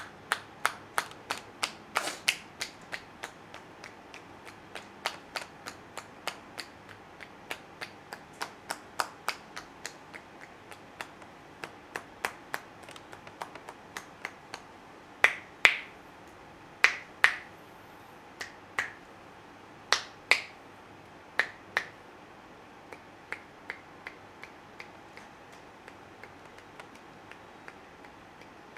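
Percussive head-massage tapping: palms pressed loosely together strike the scalp and forehead, the loose fingers clapping against each other in sharp clicks. They come in a quick, uneven run of about two or three a second, then as fewer, louder pairs midway, and turn fainter and sparser near the end.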